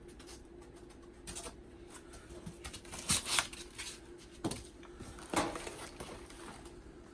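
Scattered rustles and knocks of packaging and cabinet parts being handled, the loudest about three seconds in, over a faint steady hum.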